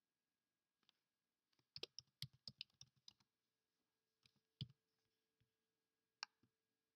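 Faint computer keyboard typing: a quick run of about a dozen key clicks about two seconds in, then a few single clicks, one near the end.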